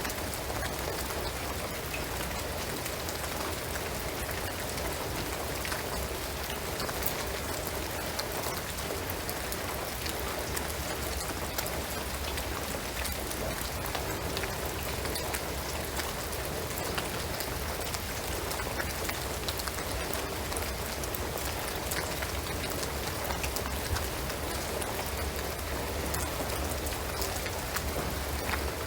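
Steady rain falling on a shingled roof and pine trees, a dense even patter with scattered individual drop ticks.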